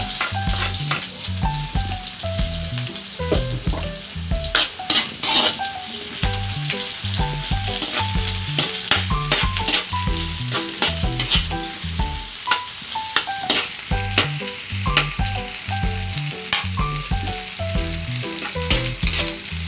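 Garlic and onion sizzling in hot oil in an aluminium wok, with a metal spoon clicking and scraping against the pan as they are stirred. Background music with a repeating bass line plays underneath.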